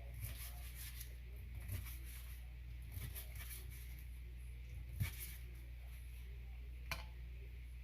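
Soft rustling with a few light taps and clicks as crispy fried chicken strips are laid onto a bowl of salad. The sharpest click comes about five seconds in, and another comes near the end.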